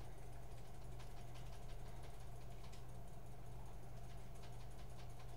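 Faint small clicks and ticks of beads and sinew being handled while threading a dream catcher web, over a steady low hum.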